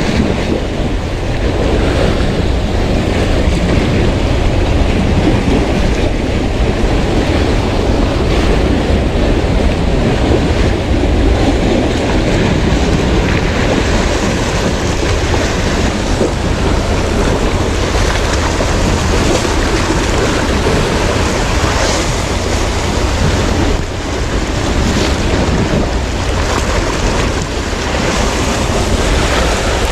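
Sea waves washing, with wind buffeting the microphone into a steady heavy rumble.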